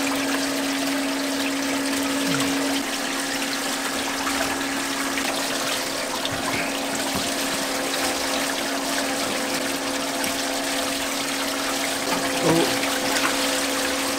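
Steady rush of running, splashing water with a low steady hum underneath, like a small fishing boat's deck water pump circulating seawater.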